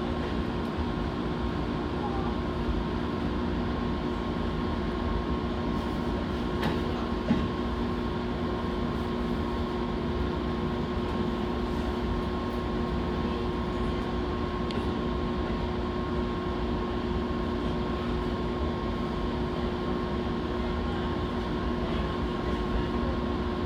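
Steady running noise of a Fujikyu Line electric train heard inside the car: a low rumble with a constant hum, and a couple of short clicks about seven seconds in.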